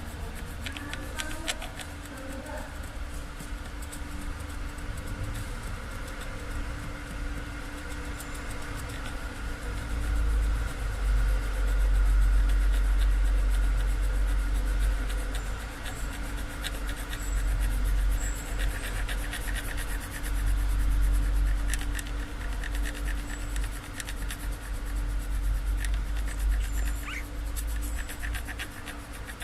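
Scratchy strokes of rubbing on paper laid over a car's stamped chassis number, taking an impression of it, over a steady hum and a heavy low rumble from handling and movement near the microphone for most of the middle.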